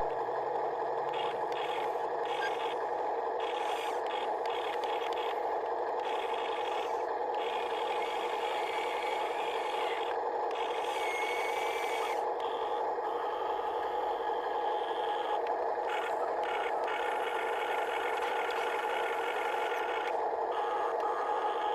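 Small electric gear motors of a Huina 1573 RC excavator whirring steadily, with a higher whine cutting in and out as different functions start and stop, and some scraping and rattling.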